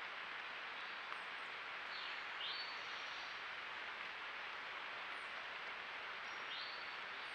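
A mountain creek's water rushing steadily, with short bird chirps over it about two seconds in and again near the end.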